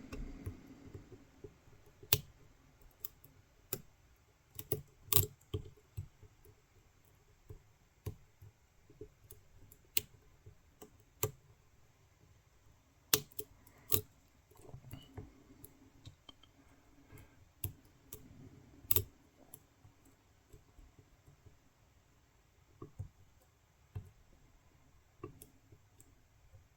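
Lock pick and tension tool working a wafer lock: small metal clicks and scrapes at an irregular pace as the pick taps the wafers, with a handful of sharper clicks standing out.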